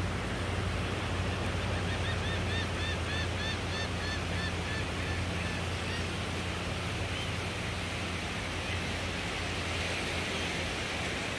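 A gull calling a quick series of short notes, about three a second, from about two seconds in until about five seconds, with a few single calls later, over steady surf and wind noise.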